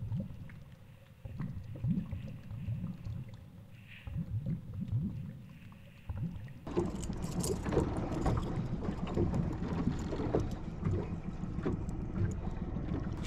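Muffled underwater water noise heard through a sealed action-camera housing: low, irregular sloshing and rumbling. About seven seconds in it cuts abruptly to open air on a small boat, with wind on the microphone, water against the hull and scattered small clicks and knocks.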